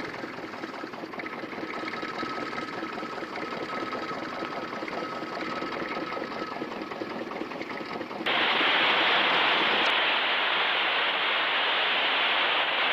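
Fast, even mechanical clatter with a faint steady whistle over it. About eight seconds in it cuts off abruptly and a louder steady hiss takes over.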